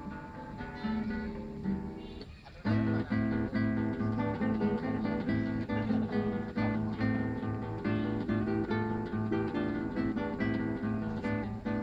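Solo acoustic guitar played with plucked notes: a softer passage, a brief drop about two and a half seconds in, then louder, fuller playing over a repeated low bass note.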